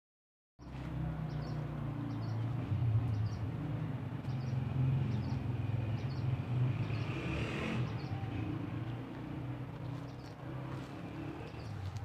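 Steady low drone of an engine running, with short high chirps repeating about once a second over it.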